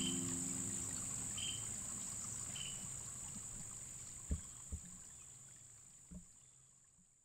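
Garden ambience around free-ranging chickens, fading steadily to silence: a steady high-pitched whine, three short high peeps in the first three seconds, and a few soft knocks later on. The last held note of background music dies away in the first second.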